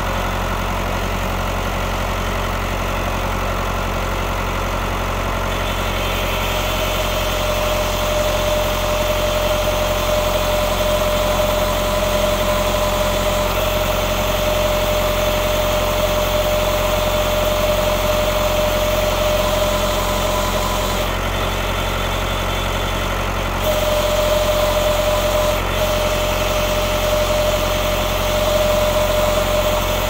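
Massey Ferguson MF50E backhoe's Perkins diesel engine running steadily. After about seven seconds a steady whine joins it, dropping out briefly a little past twenty seconds.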